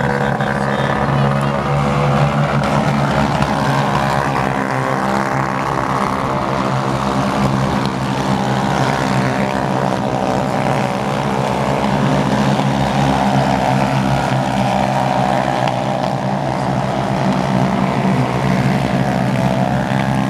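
Side-by-side UTV race engines running steadily under power, a continuous drone whose pitch drifts up and down a little.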